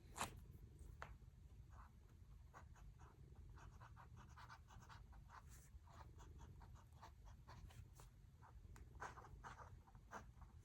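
Faint pen scratching on paper in short, irregular strokes, as of handwriting, with one sharper click near the start.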